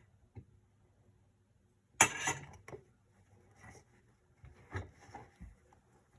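Kitchen handling sounds: one sharp knock or clatter about two seconds in, then faint taps and soft thuds as soaked herbs are tipped into a cheesecloth for straining.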